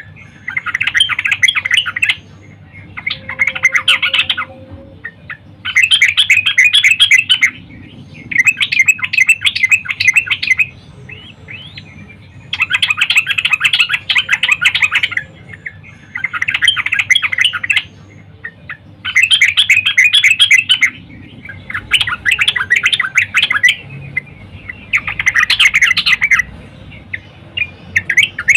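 Yellow-vented bulbul (trucukan) calling in repeated bouts of rapid, bubbly chattering, each about two seconds long with short pauses between. This is the female's call, used as a lure to make male trucukan sing.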